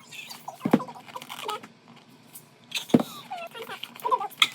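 An album package being handled and unpacked: rustling of paper and cardboard with three sharp knocks, about a second in, near the middle and near the end.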